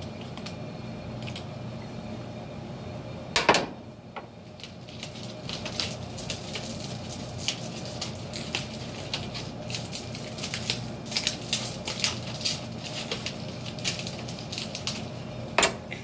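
Aluminium-foil flexible dryer vent duct crinkling and crackling in many small quick clicks as its end is worked open by hand. A sharp clack about three and a half seconds in, and another just before the end.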